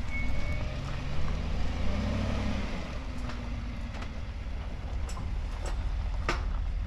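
A vehicle engine running at low speed as it backs up and drives onto a bent metal gate, its pitch rising briefly about two seconds in. A short high beep sounds at the start, and several sharp clicks and knocks come near the end.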